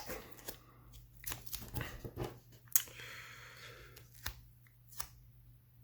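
Faint handling of tape and small materials: scattered light clicks and rustles, with a soft hiss about three seconds in, like tape being pulled or peeled.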